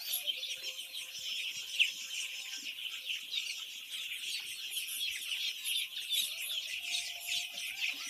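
A large flock of week-old chicks peeping continuously, a dense high-pitched chorus of overlapping chirps.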